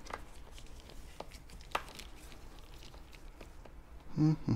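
A few faint clicks and taps, as of a power tool being handled and set down, then a short hummed, voice-like sound near the end.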